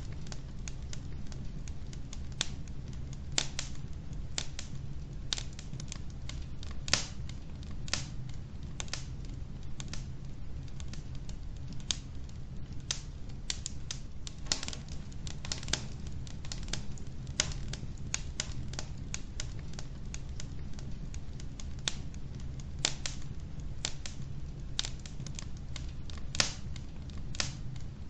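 Wood logs burning in a fireplace: irregular sharp crackles and pops, sometimes several a second, with a handful of louder pops, over a steady low rumble.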